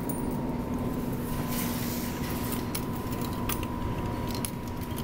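Claw crane machine and store background hum, steady, with a few short sharp clicks spread through it as the claw is steered.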